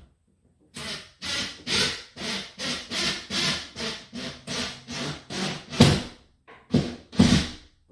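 Impact driver running in short repeated bursts, about two a second, as it drives a screw into the wall; the screw goes in a little way and then stops turning.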